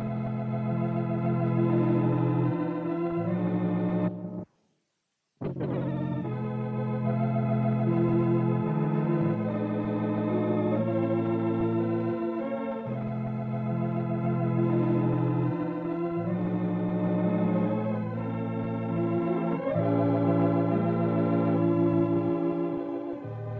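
Organ music: slow held chords that change every second or two. It breaks off into about a second of silence around four seconds in, then comes back.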